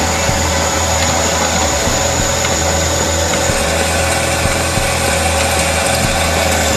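Drill press running steadily as its bit cuts into a steel rod, a constant motor hum with a few steady tones.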